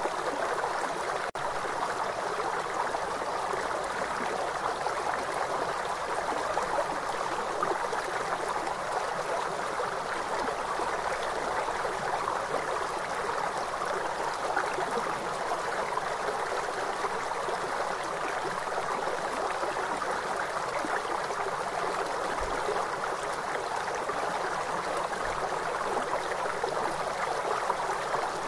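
Steady rushing of fast-flowing river water, an even hiss that doesn't change.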